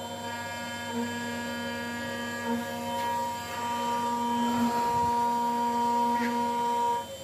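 Steady electric machine hum with a high whine of several fixed pitches layered together, from a motor running in a metal workshop. It drops away suddenly just before the end.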